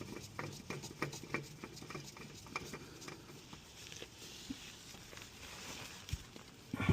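Faint small clicks and light rustling of a rag wiping excess oil from around an oil filter housing, busiest in the first few seconds.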